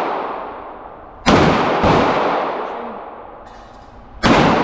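Three pistol shots, the first two about half a second apart and the third about two and a half seconds later. Each cracks sharply and then echoes for a second or more off the walls of an indoor range.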